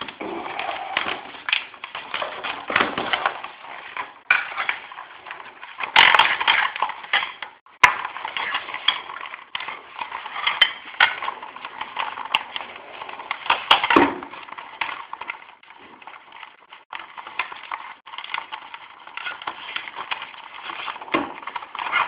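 Close-up handling noise of the mount's cord being worked through and knotted around the vents of a plastic bicycle helmet: continuous scratchy rustling and scraping with many small clicks and knocks, louder in a couple of brief spells.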